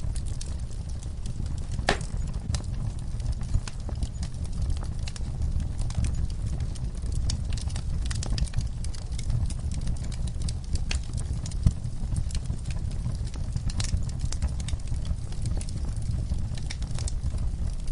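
Wood fire burning in a fireplace: a low steady rumble of the flames with frequent irregular crackles and pops, a sharper snap about two seconds in and another near the middle.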